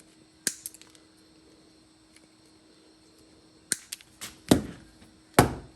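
Sharp taps on the multi-tool's motor stator, knocking it forward to free it from the plastic housing: one tap about half a second in, then five more over the last two seconds, the last two the heaviest.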